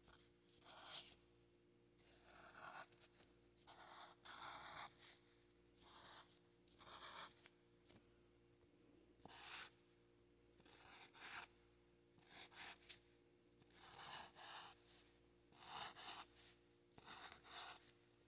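Black felt-tip marker drawing on paper: a faint scratchy rasp with each short pen stroke, about one stroke a second in an uneven rhythm, as leaves are sketched onto a stem.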